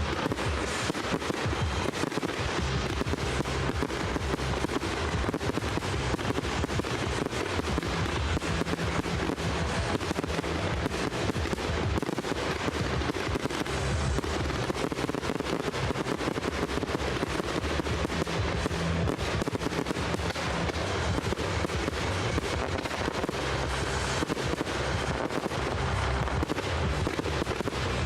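Fireworks display going off without pause: a dense, continuous barrage of bangs, booms and crackling shells.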